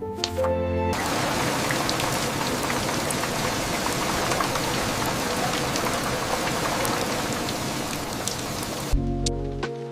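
Steady rain: an even hiss with scattered drop ticks. It cuts in about a second in and cuts off abruptly about a second before the end, where music takes over.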